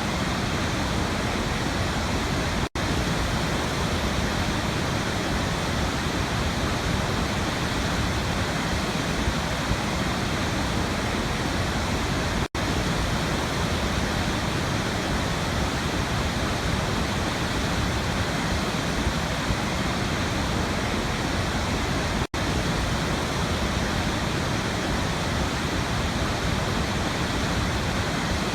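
Waterfall rushing in a steady, even roar of falling water, broken three times by a split-second dropout, about ten seconds apart.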